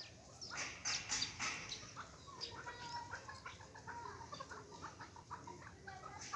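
A flock of young chukar partridges calling, a busy run of short chirps and whistled notes, with a few louder scratchy sounds about a second in.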